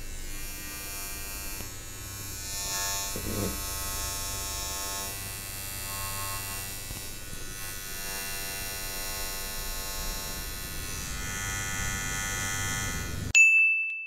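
Mi Beard Trimmer 1C switched on and running: a steady electric buzz with a low hum from its motor and blades. Near the end the buzz cuts off suddenly and a short, loud high tone sounds.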